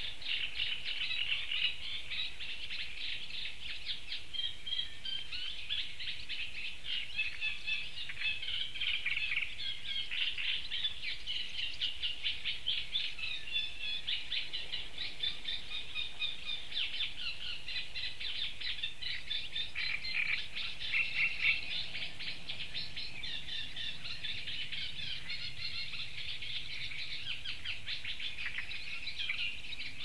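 Small songbirds singing continuously, a dense run of rapid, quickly repeated high notes with several voices overlapping, a little louder about two-thirds of the way through.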